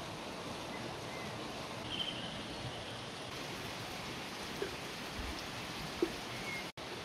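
Steady outdoor rushing noise of running water, with a few faint bird chirps. Two light taps about four and a half and six seconds in, as a skewer of strawberries knocks against a glass teapot.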